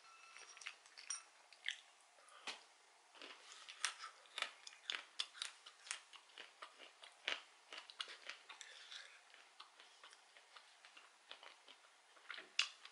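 A person chewing roasted peanuts close to the microphone: a faint, irregular string of small crunches and clicks.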